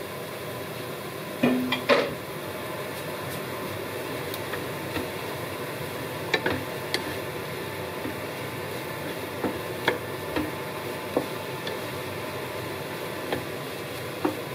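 Wooden spatula stirring sliced mushrooms and onions in a frying pan, knocking against the pan now and then, loudest about two seconds in, over the steady hiss of the frying.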